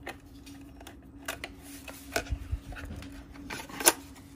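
Small clicks and taps of plastic being handled: a small screw being undone with a screwdriver and the snap-on plastic cover of a Nest Heat Link being opened, with the sharpest click a bit before the end. A faint steady hum runs underneath.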